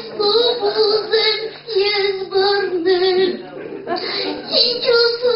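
A high voice singing a melody in sustained, gliding phrases with short breaks between them.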